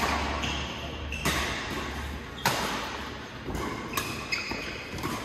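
Badminton rackets striking a shuttlecock in a fast doubles rally: a sharp hit about every second. Short shoe squeaks on the court mat come between the hits.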